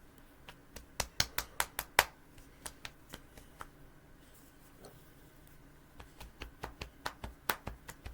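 Sharp taps in two quick runs, about six close together a second in and another string from about six to eight seconds, with a few scattered taps between.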